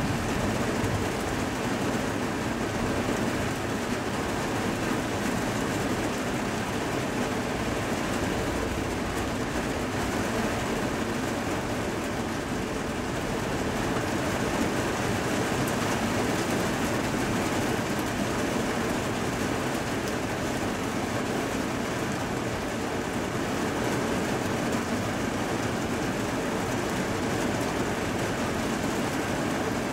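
Heavy thunderstorm rain pouring steadily, a dense, even hiss of downpour with no breaks.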